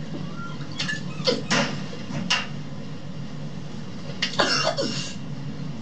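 A young woman coughing in bouts after gulping neat spirit from the bottle. There are short bursts about a second in and again near two and a half seconds, then a longer, falling cough about four seconds in.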